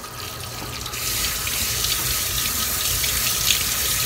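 Kitchen tap running over boiled leaves in a plastic colander and splashing into a stainless steel sink, a steady rush of water that grows louder about a second in.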